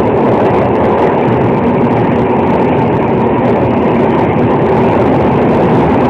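Rajdhani Express coaches running through at speed: a loud, steady rush and rumble of wheels on the rails.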